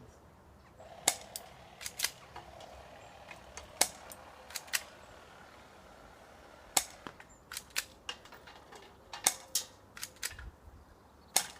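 Spring airsoft pistols being fired, sharp snapping shots at irregular intervals, about fifteen in all, some in quick pairs.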